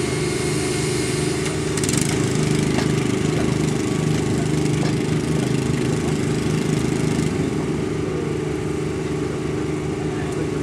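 Small engine of a hydraulic power pack running steadily, driving a hydraulic weld trimmer while it shears the surplus metal off a fresh thermite rail weld.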